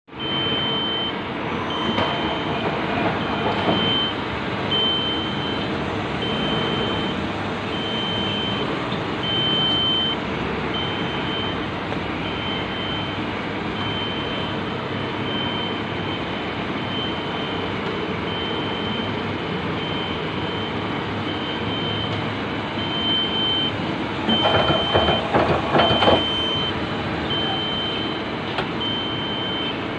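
Mori Seiki CL-20A CNC lathe running with a steady machine noise, under a high electronic beep that repeats about once a second. A brief rattling clatter lasts about two seconds near the end.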